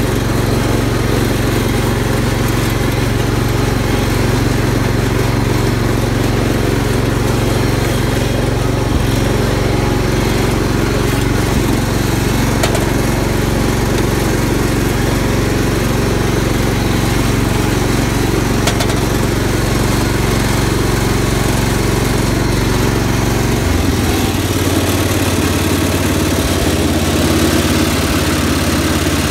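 Cub Cadet garden tractor's engine running steadily while the tractor is driven across grass. About three-quarters of the way through, the engine note changes abruptly and then carries on running.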